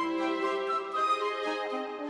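Instrumental background music: a melody of held notes over chords, without low bass notes.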